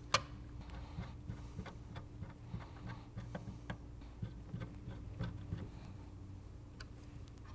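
Hand screwdriver driving small screws through a metal mounting bracket into a car stereo head unit's steel chassis: light, irregular metallic ticks and clicks, with one sharp click just after the start.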